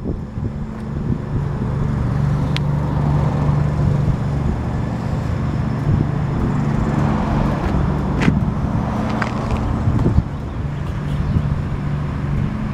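Scag V-Ride stand-on mower's engine running steadily, with a few sharp clicks about two and a half seconds in and again about eight seconds in.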